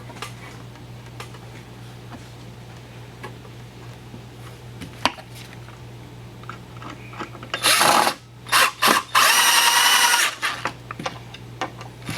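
Power drill starting about seven and a half seconds in: a short burst, a few quick pulses, then a run of about two seconds. Before it there is only a low steady hum with a few faint clicks.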